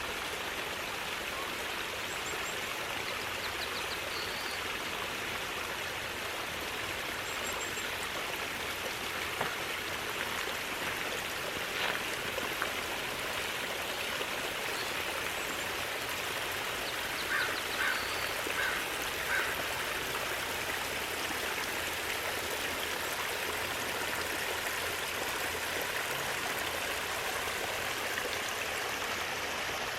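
Seasonal runoff falling as a small waterfall into a roadside ditch: a steady rushing and splashing of water. A bird gives four short calls a little past the middle.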